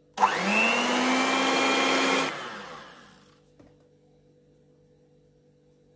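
Electric hand mixer switched on in a bowl of whole eggs: its motor whine rises in pitch as it spins up, holds steady for about two seconds while the beaters whip the eggs, then dies away as it stops.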